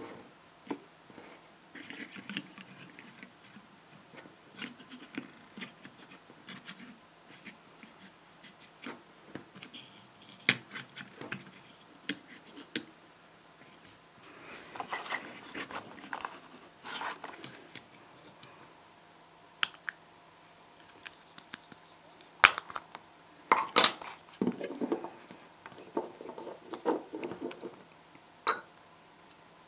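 Small plastic building-block figure being handled and moved on a wooden table: scattered light clicks, taps and scrapes, with a few sharper knocks in the second half.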